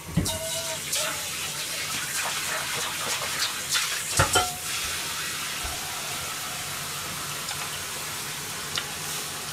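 A pan of hot water with freshly added squid pieces heating on a gas burner, being blanched short of a boil: a steady hiss, with a few light clicks and knocks in the first half.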